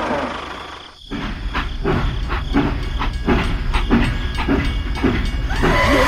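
Steam train chugging: evenly spaced chuffs about four a second over a low rumble, starting about a second in.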